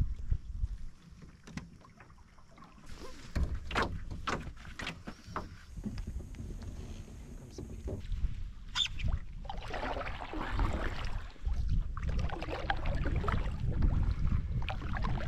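Canoe paddle strokes in lake water: scattered knocks and drips at first, then steadier splashing of the paddle from about ten seconds in, over a low rumble of wind on the microphone.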